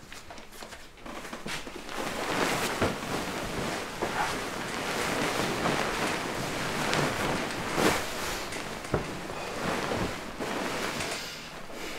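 Duvet and bedsheets rustling as two people climb into bed and pull the covers over themselves, with a few soft knocks among the rustling.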